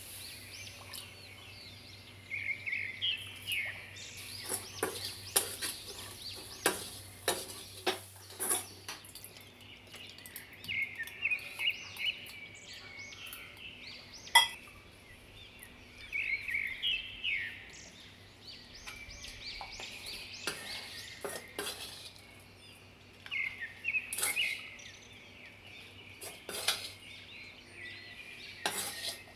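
Steel ladle clinking and scraping against a steel kadai and plate as thick burfi mixture is stirred and scooped out, with scattered sharp knocks. Birds chirp in short bursts in the background.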